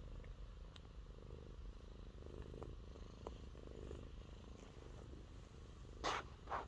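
Domestic cat purring faintly, a low steady rumble that swells and eases with its breaths. Two short rustles come near the end.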